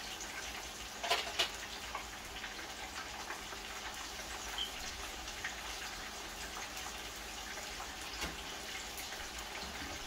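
Banga mary fish pieces frying in hot oil in a pan: a steady sizzle with scattered small crackles, and a couple of sharper clicks about a second in as more fish is laid in.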